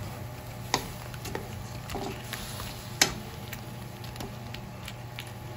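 Large shrimp sizzling in garlic-butter sauce in a wok while a wooden spatula stirs them. The spatula gives two sharp knocks against the pan, the louder one about three seconds in, plus several lighter ticks.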